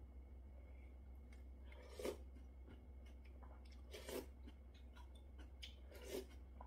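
Quiet eating sounds: a few short slurps of beef-bone broth from a spoon, spaced a second or two apart, over a faint steady low hum.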